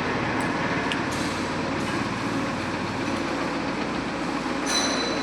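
Steady mechanical rumble and running noise, with a brief high-pitched squeal near the end.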